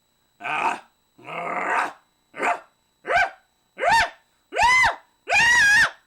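A person's voice making a run of short, rough, dog-like barks and growls that turn into high-pitched yelps. The yelps arch up and down in pitch, each one longer and louder than the last, building toward a held shriek.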